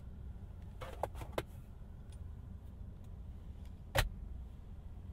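Centre console armrest lid of a 2023 Kia Niro handled, with a few light clicks about a second in, then shut with one loud knock at about four seconds, over a steady low hum.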